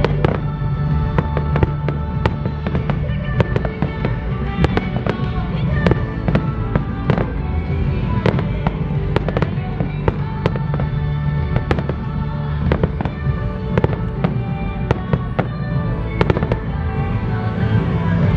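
A rapid barrage of aerial firework shells bursting: many sharp bangs, several a second, over a pop song.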